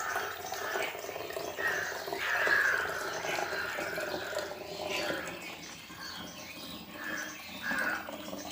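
Liquid being poured into a bottle, a continuous splashing trickle.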